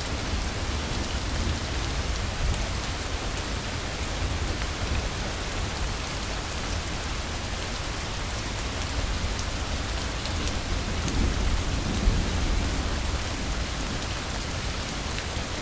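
Steady rain falling, an even hiss with scattered drip ticks and a low rumble underneath, swelling slightly about eleven seconds in.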